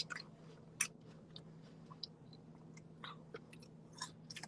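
A person chewing food with the mouth open, faint irregular smacks and small clicks, over a low steady hum.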